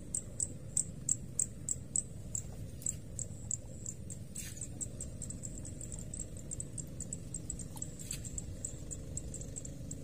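A series of short high-pitched chirps, about three a second at first and quickening later, over a steady low rumble.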